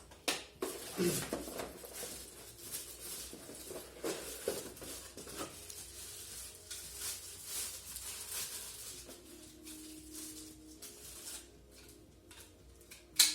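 Rustling and handling of a cordless vacuum cleaner's packaging and plastic parts as they are unpacked, with scattered clicks and knocks, one sharp click at the start and another near the end.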